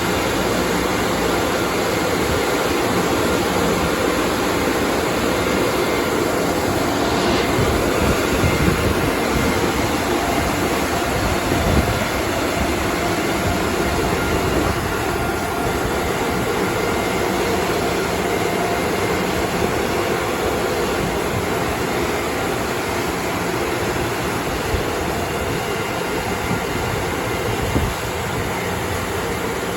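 Laserwash 4000 touchless car wash machinery running: a loud, steady rush with a low hum and a few faint knocks.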